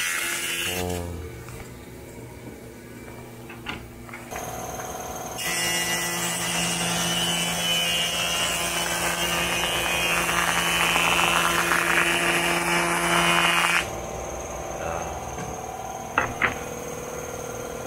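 Jointer-planer with a helical cutterhead: the motor starts running about four seconds in, then a board is fed across the cutter for about eight seconds with a loud, steady planing noise that stops abruptly. The machine keeps running unloaded afterwards.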